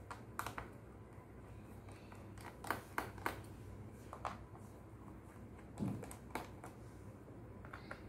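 Small screwdriver clicking against the screws and plastic bottom panel of a Dell G5 gaming laptop as the panel screws are loosened: scattered light clicks, three sharp ones in quick succession about three seconds in, and a duller knock about six seconds in.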